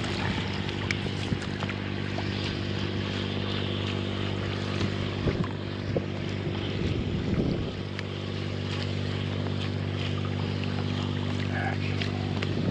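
A boat motor running at a steady, unchanging pitch, with water slapping and splashing against an inflatable boat's hull in short knocks, and wind on the microphone.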